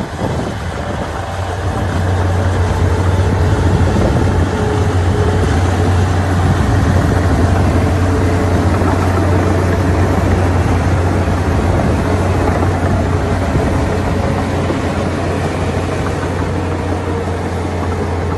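Komatsu D61EX crawler bulldozer's diesel engine running steadily, with a strong constant low hum, getting a little louder in the first couple of seconds.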